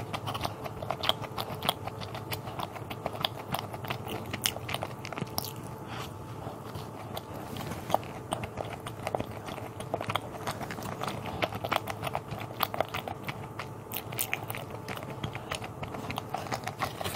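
Close-miked chewing of a soft, sugar-dusted, strawberry-jam-filled yeast doughnut, with many small wet mouth clicks and bites throughout.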